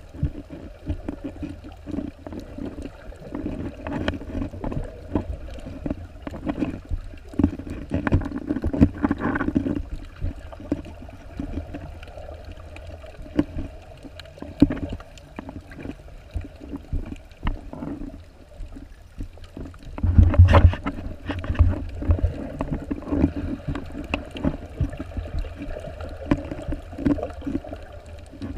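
Muffled underwater sound through a submerged camera's housing: water gurgling and sloshing with irregular low knocks, loudest in a brief burst about twenty seconds in.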